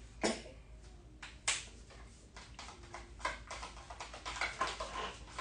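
Scattered clicks and light knocks of plastic hair-colour tubes, a tint brush and a mixing bowl being handled on a metal trolley tray while colour is mixed, the sharpest knock about a second and a half in.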